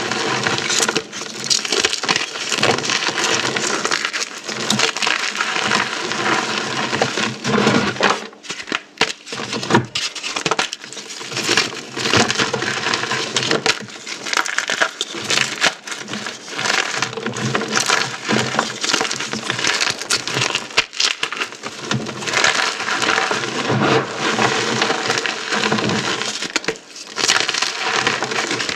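Dried Orbeez hydrogel beads and chalk being crushed: dense, continuous crunching and crackling made of many small snaps, easing off briefly now and then.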